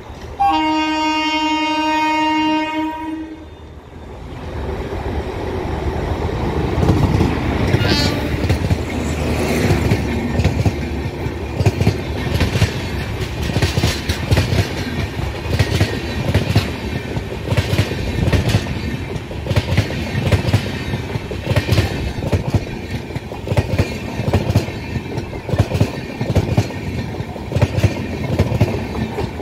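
A WAP4 electric locomotive's horn sounds one steady blast of about three seconds. An express train then runs past at speed, its coach wheels clattering over the rail joints in a steady clickety-clack.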